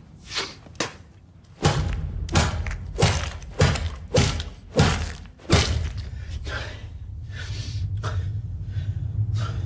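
A run of heavy, dull blows landing on a body, about one every half second, thinning out to a few fainter ones after about six seconds, with a man panting. A low rumbling drone runs underneath from about a second and a half in.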